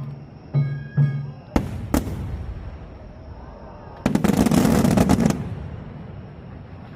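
Starmine aerial firework shells bursting: a few loud booms and sharp reports in the first two seconds, then a dense flurry of rapid crackling bursts about four seconds in that lasts around a second and then dies away.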